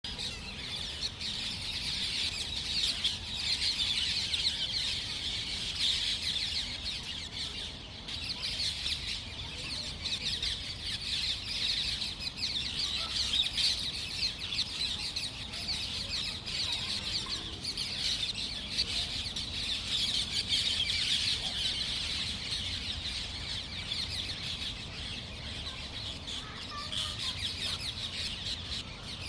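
Dense chorus of many small birds chirping and chattering continuously, swelling and easing every few seconds, over a faint low rumble.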